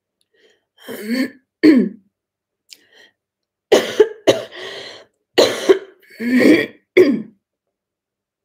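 A woman coughing and clearing her throat into the crook of her elbow: two short coughs about a second in, then a quick run of about five coughs from about 4 to 7 seconds in.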